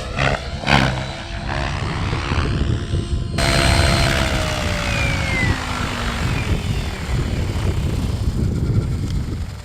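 Radio-controlled helicopter flying: its rotor and motor whine rises and falls in pitch as it moves, over steady rushing noise. The noise grows abruptly about a third of the way in. Wind rumbles on the microphone.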